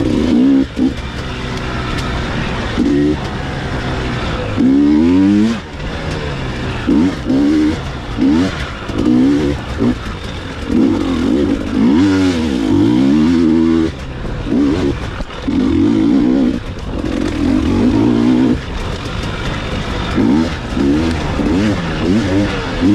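Dirt bike engine revving up and down as the rider opens and closes the throttle, its pitch repeatedly climbing and dropping, with several sustained loud pulls of a few seconds each.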